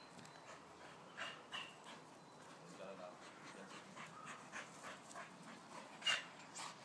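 Springer spaniel panting: a few short, sharp breaths, the loudest about six seconds in.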